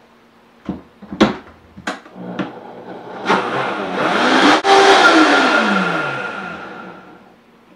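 A few knocks as the blender jug is set on its base, then the Vitamix blender's motor starts about three seconds in and runs at full speed, blending a hot coffee latte. Its pitch rises, then falls as it winds down and stops near the end.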